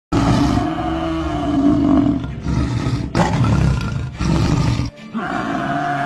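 Dramatic background music in several held phrases, with deep growl-like rumbling under it until about five seconds in, when the low end drops away and a steadier held chord follows.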